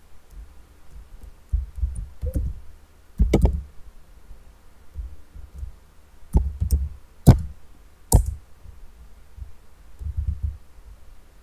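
Computer keyboard keystrokes and mouse clicks picked up by a desk microphone: irregular dull thumps with a few sharp clicks, the sharpest between about three and eight seconds in.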